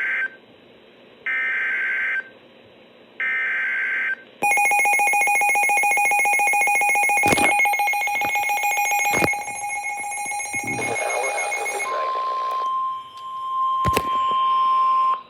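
NOAA Weather Radio emergency alert coming through a Midland WR400 weather radio. First come three short, raspy digital SAME header bursts, each about a second long. Then a loud, rapidly pulsing alarm tone sounds for about seven seconds, and near the end a steady single-pitch warning alarm tone is held for about three seconds, announcing a severe thunderstorm warning.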